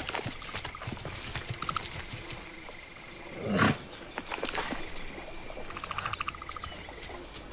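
Savanna night-insect ambience: a short insect chirp repeating about two and a half times a second over a steady high whine, with a brief buzzing trill twice. Soft scattered clicks run through it, and there is one louder rushing sound about three and a half seconds in.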